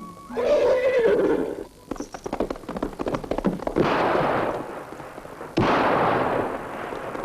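A horse whinnies, then hooves clatter in a quick run of beats. Two loud bangs come about four and six seconds in.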